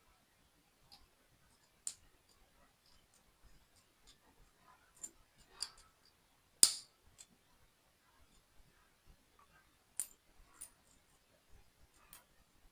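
Small plastic building-toy pieces being handled and pressed together: scattered sharp clicks and light knocks with quiet gaps, the loudest about two-thirds of the way through.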